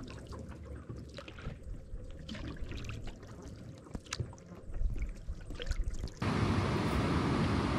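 Canoe paddle strokes through calm lake water, with small drips and splashes from the blade. About six seconds in, a louder steady rushing sound cuts in suddenly.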